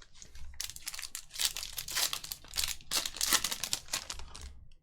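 Trading-card pack wrapper being torn open and crinkled, a dense run of crackling and tearing.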